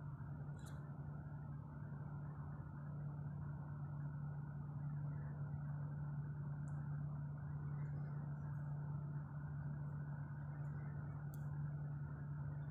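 Air conditioning running in a large hall: a steady low hum with an even rushing noise beneath it, unchanging throughout, with a few faint ticks.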